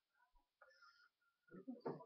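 Near silence: room tone, with a voice starting up near the end.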